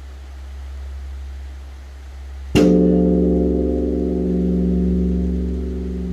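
Large Korean bronze temple bell (beomjong) struck once by a swung wooden log about two and a half seconds in, then ringing on in several steady tones that swell and fade slowly over a deep, steady hum. It is the bell that calls the dawn service.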